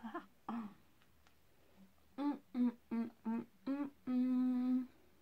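A woman humming with her mouth full while chewing a taco: a run of five short "mm" notes, then one long steady "mmm" near the end, a sound of enjoying the food.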